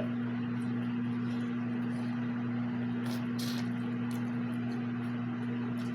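A steady low hum, with a few faint short noises about three seconds in.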